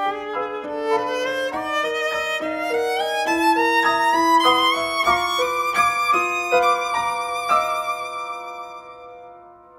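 Viola with piano accompaniment: the viola climbs in a rising line of held notes over piano chords to a high sustained note with vibrato, which then fades away near the end.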